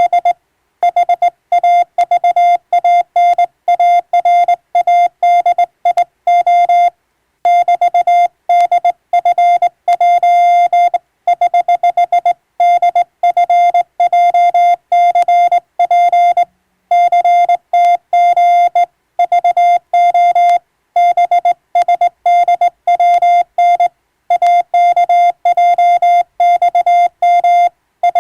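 Morse code (CW telegraphy) sounded as a single-pitch beep, keyed on and off in quick dots and dashes. Short gaps fall between letters and slightly longer pauses between words.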